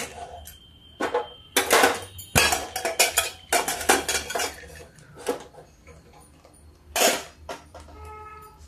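Inner-lid pressure cooker's metal lid being unlocked and worked out of the cooker's mouth: a run of clanks and scrapes, then a single louder clank about seven seconds in as the lid is set down on the stove.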